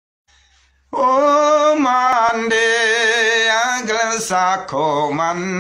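A man singing a slow melody in Garo with long, wavering held notes, starting about a second in; the pitch steps lower about two-thirds of the way through.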